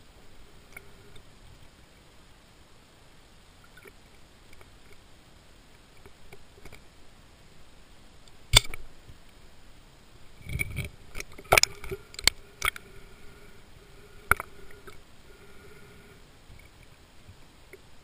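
Sharp clicks and knocks heard underwater against a faint steady hiss: a single loud one about halfway in, a cluster of several about two seconds later with a short low rumble, and one more shortly after.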